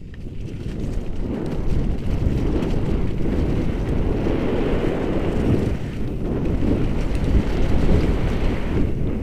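Wind rushing over the camera microphone on a mountain bike speeding down a dirt trail. The noise builds over the first second or so, then stays loud and steady.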